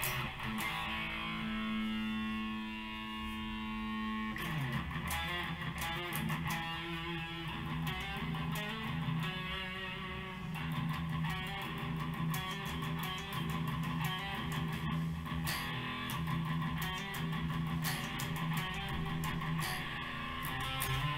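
Electric guitar being played: one note held and ringing for about four seconds, then a long run of quick picked notes over a repeating low note.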